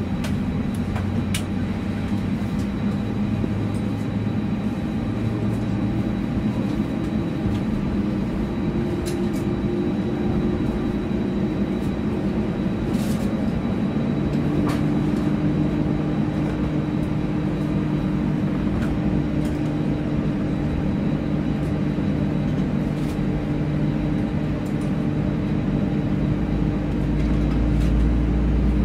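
Airbus A320's CFM56-5B turbofan engines running at taxi power, heard inside the cabin as a steady drone with a thin high whine. The engine tone changes about halfway through, and a low rumble grows near the end.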